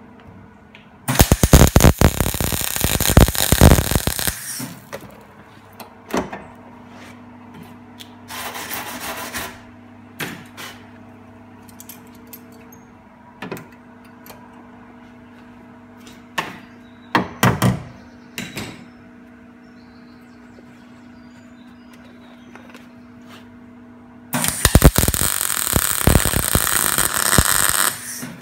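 ESAB MIG welder welding a replacement quarter panel onto a car body: two long runs of crackling arc, about three seconds each, one a second in and one near the end, with a few brief tack bursts between, over a steady low hum.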